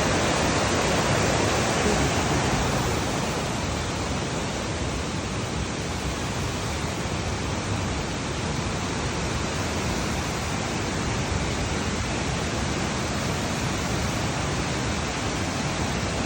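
Waterfall: water pouring over the falls in a steady rush, a little louder in the first few seconds.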